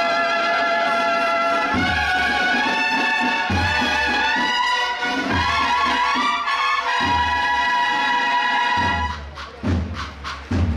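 Brass band playing a Holy Week processional march: long held brass chords over low bass drum beats every couple of seconds. Near the end the brass thins out and mostly drum strokes remain.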